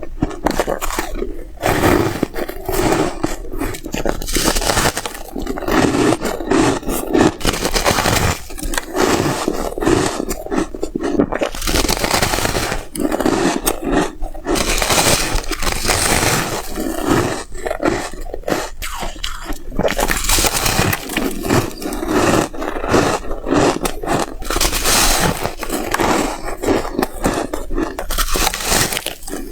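Close-miked biting and chewing of white freezer ice and frost: loud, irregular crunching and cracking, bite after bite.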